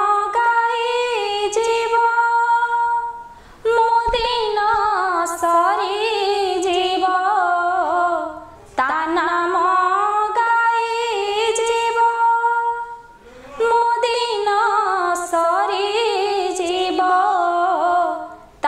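A woman singing an Odia devotional song (bhajan) to Jagannath, unaccompanied. She sings four long phrases with held, ornamented notes, each followed by a short breath.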